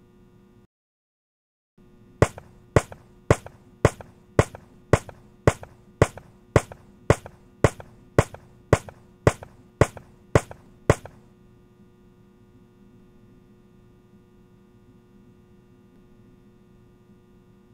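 Seventeen sharp taps on a tabletop, evenly spaced about two a second, each with a short ring of room echo, over a low steady hum. They follow a moment of dead silence.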